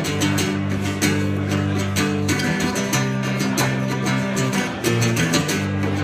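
Guitar strummed in a steady rhythm over held low notes, an instrumental passage with no singing.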